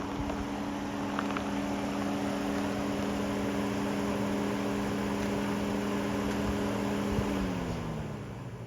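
Car driving, a steady engine hum with road noise; the engine note falls near the end as the car slows.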